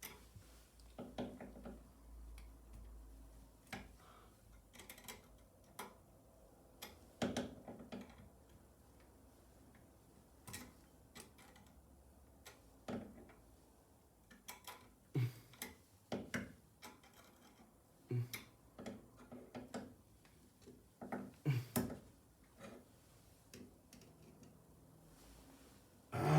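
Scattered light clicks and knocks, a few with a dull thump, from a screwdriver and stiff wires being worked at a wall outlet's terminal screws.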